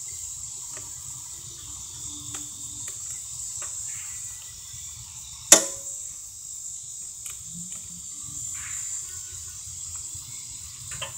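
Steady high chirring of insects, with faint clicks and knocks from hands working at a lawn tractor's battery compartment, and one sharp, loud click about five and a half seconds in.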